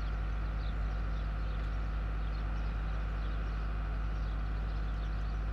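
Steady outdoor background: a constant low rumble with a faint hum, and faint bird chirps scattered throughout.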